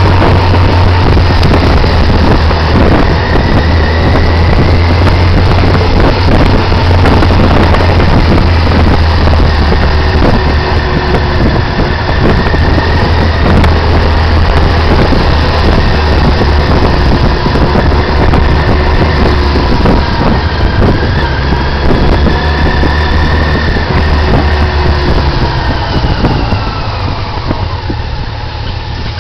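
Motorcycle engine running steadily on a downhill ride, under a loud rush of riding noise. Its pitch rises and falls gently with the revs, and the sound eases off somewhat near the end.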